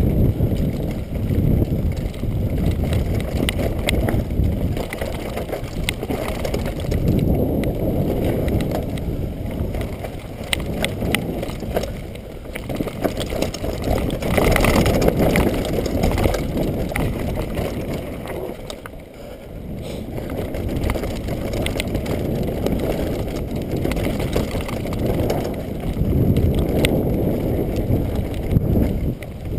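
Downhill mountain bike riding a rough dirt trail, heard from the rider's GoPro. Wind rushes over the camera microphone while the tyres roll on the dirt and the bike clatters over rocks and roots, loudest about halfway through on a rocky stretch.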